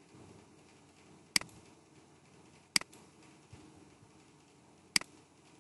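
Computer mouse button clicking three times, each a sharp click followed at once by a softer release tick.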